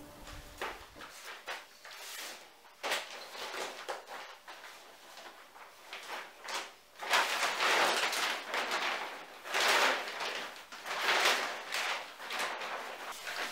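Plastic sheeting crinkling and rustling in bursts as it is unfolded and smoothed out over a wooden table, with a few light knocks near the start.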